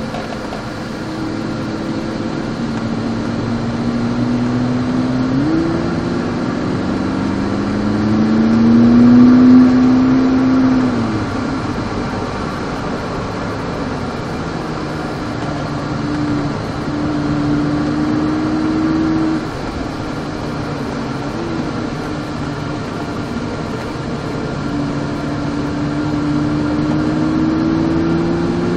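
McLaren sports car's engine heard from inside the cabin while lapping a race track. Its pitch climbs under throttle and jumps or drops sharply at gear changes. It is loudest about eight to eleven seconds in.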